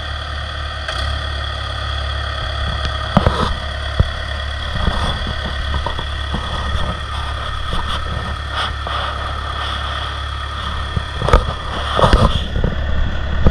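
Construction equipment engine running steadily. A few sharp knocks come through it, two about three to four seconds in and a cluster near the end.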